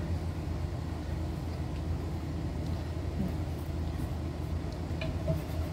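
Steady low hum, with a few faint short clicks near the end.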